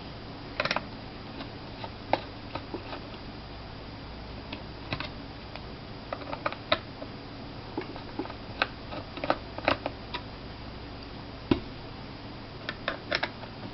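Small Phillips-head screwdriver loosening screws from a laptop hard drive's metal case: irregular light clicks and ticks, some in quick clusters, over a faint steady low hum.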